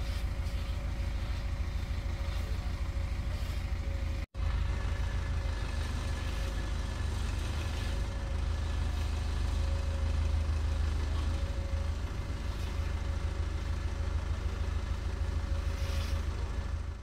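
An engine running steadily with a low, rapidly pulsing rumble and a faint steady whine. It breaks off for an instant about four seconds in and stops abruptly at the end.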